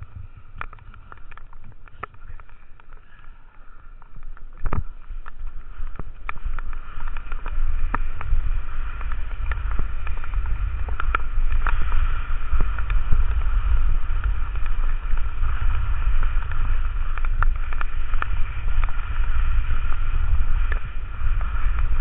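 Wind buffeting the microphone of a body-worn camera on a skier going down a wet, slushy run, the rumble building up from about eight seconds in as speed picks up. Skis hiss and scrape on the wet snow, with scattered sharp ticks throughout.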